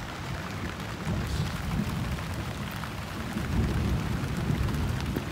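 Heavy rain falling, an even hiss of drops with a low, uneven rumble underneath.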